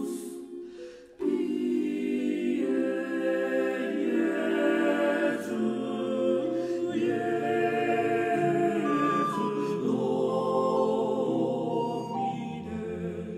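End-credits music with choral voices holding sustained chords. It comes in loudly about a second in, the chords shift every second or two, and a lower part joins around the middle.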